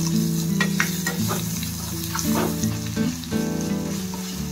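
Tempering spices (mustard seeds, cumin, curry leaves, ginger-garlic paste and green chilli) sizzling in hot oil in a stainless steel kadhai while being stirred with a steel ladle, with scattered sharp clicks.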